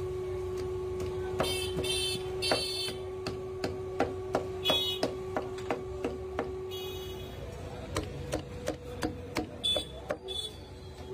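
Metal cleaver and spatula chopping cooked shawarma chicken on a flat griddle: a run of sharp clacks, about two a second, with a few high metallic scrapes. A steady hum runs underneath.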